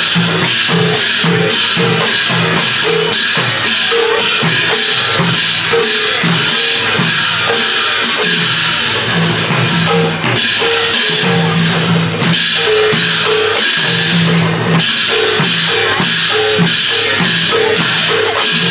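Live folk percussion: barrel-shaped dhol drums beaten in a fast, driving rhythm with large brass hand cymbals clashing in time, about three strokes a second.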